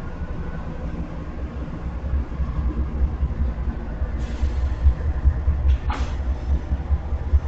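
Freight train rolling past with a low, uneven rumble. A short hiss comes about four seconds in and a sharp click near six seconds in.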